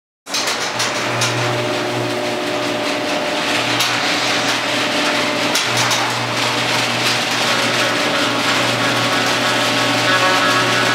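Overhead garage door opening, its motorised opener humming steadily while the door rattles and rumbles up its tracks.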